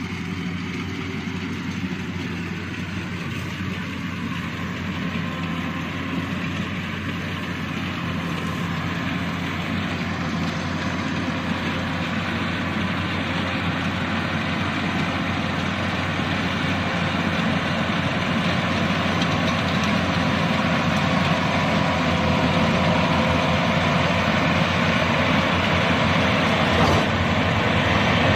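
Yanmar 82V rice combine harvester running steadily, its diesel engine and cutting and threshing machinery droning, growing gradually louder.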